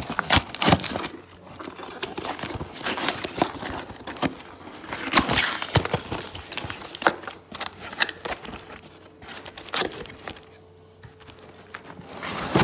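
Corrugated cardboard shipping box being torn open by hand: irregular ripping, scraping and crinkling of cardboard and tape, easing off for a moment near the end.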